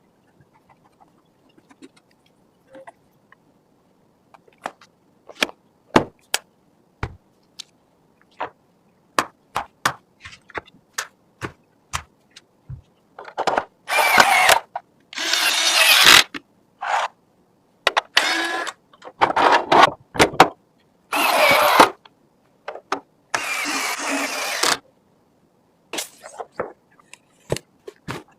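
PC parts being handled during assembly: scattered sharp clicks and taps, then from about halfway a series of louder rasping bursts lasting a second or two each.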